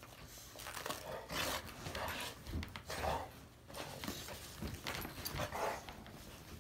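Two pit bulls playfighting, panting and huffing in irregular bursts, with scuffling.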